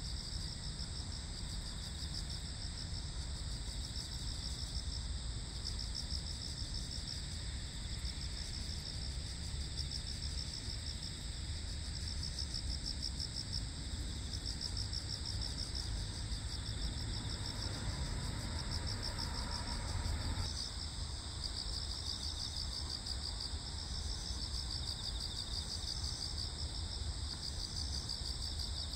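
A chorus of crickets and other insects chirring: a fast pulsing trill and a steady high-pitched tone that both run on without a break, over a steady low background hum.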